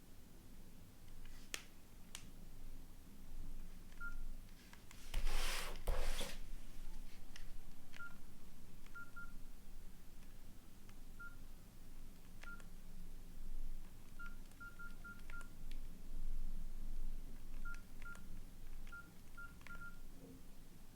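Nokia N80 keypad tones: short, identical beeps as keys are pressed, scattered singly and in quick runs of three or four, with faint key clicks. About five seconds in there is a louder handling rustle.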